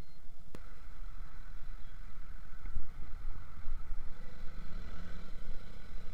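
Motorcycle riding in traffic: the engine running with a steady low rumble of wind and road noise on a bike-mounted camera.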